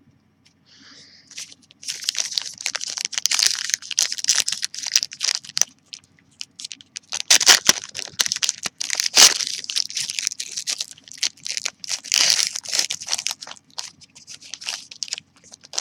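A Panini Classics football card pack's wrapper being torn and crinkled open by hand: dense crackling with sharp snaps, loudest about halfway through. The packs open up awkwardly.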